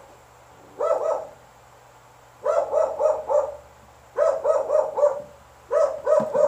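A dog barking repeatedly, in four bouts of two to four quick barks each.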